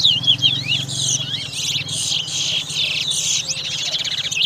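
Competition towa songbirds singing: quick, repeated chirping and trilling phrases. A low steady hum runs underneath, strongest in the first second.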